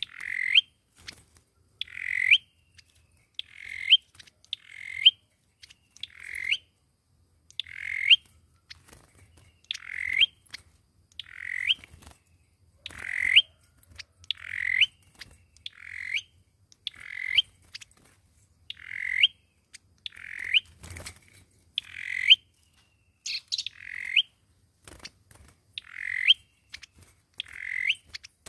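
A chim sâu dừa calling over and over, about one call every second to second and a half. Each call is a short note that swells and ends in a quick upward sweep, in the bird's repeated lure and fighting-song calling.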